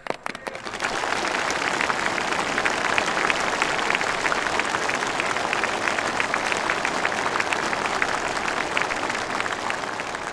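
Applause from a large crowd of assembled soldiers: dense, even clapping that swells up about a second in, holds steady and begins to die away near the end.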